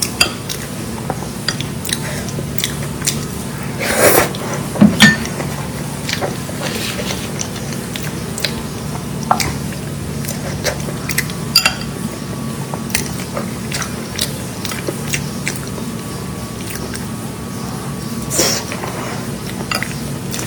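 Close-miked mukbang eating sounds: chewing with scattered clicks and taps of cutlery or packaging, with louder crunchy bursts about four and five seconds in and again near the end.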